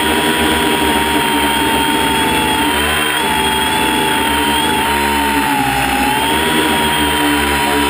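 Electric motors and propellers of a multirotor drone, heard through its own onboard camera: a steady, loud whine whose pitch wavers gently up and down as the motors adjust thrust.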